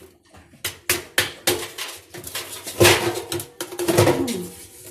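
A large block of ice knocking and clunking as it is handled and put into a washing machine drum: a series of sharp knocks, the loudest about three seconds in.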